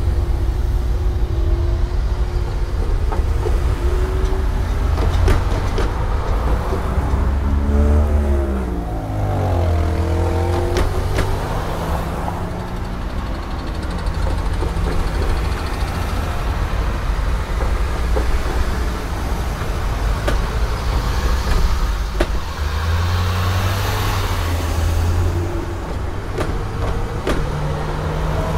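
Road traffic driving over a railroad grade crossing: car engines accelerating across the tracks, one engine rising and falling in pitch about a third of the way in, with scattered sharp knocks.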